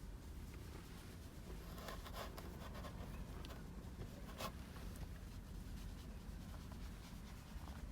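Faint scratching and rustling: a few quick scratchy strokes about two seconds in and one sharp click halfway through, over a low steady hum.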